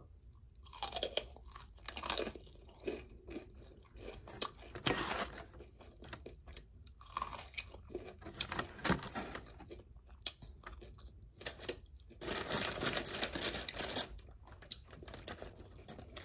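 Close-miked chewing and crunching of crispy fried chicken wings, in irregular bites, with a longer, denser stretch of crunching about three-quarters of the way through.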